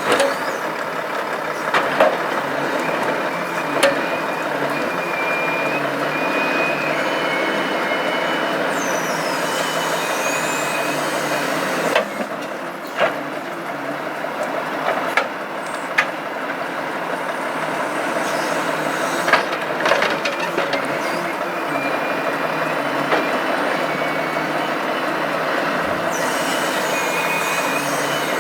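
Volvo FH logging truck running steadily as it powers its Palfinger Epsilon timber crane, with a wavering hydraulic whine that comes and goes. Sharp knocks come every few seconds, several of them close together around the middle.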